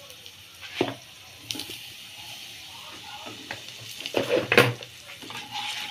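Peanuts, cumin, mustard seeds and curry leaves with turmeric sizzling in hot oil in a nonstick kadai, while a wooden spatula stirs and scrapes the pan. There are a few knocks of the spatula against the pan, the loudest cluster about four seconds in.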